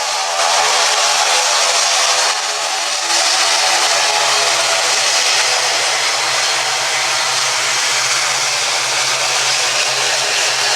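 Airliner engines running loud and steady: a constant roar and rush of air with a steady whine and a low hum underneath.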